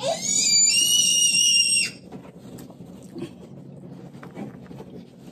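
A shrill, high-pitched whistle lasting about two seconds and stopping abruptly, followed by faint room noise with a few small clicks.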